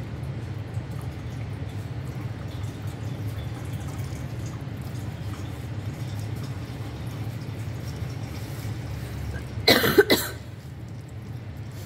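Engine oil pouring from a 2023 Chevy Trailblazer's drain hole onto a splash pad of furnace-filter-like material in a drain pan, a steady low sound. About ten seconds in a person coughs once, the loudest sound.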